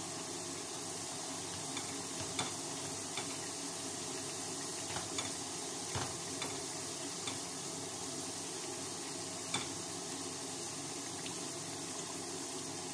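Potato chunks shallow-frying in hot oil in a non-stick pan, a steady sizzle, with scattered sharp clicks of metal tongs knocking against the pan as the pieces are turned.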